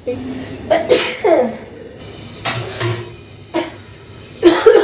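A person sneezing: one sharp sneeze about a second in, then more short, sudden sneeze-like bursts later on.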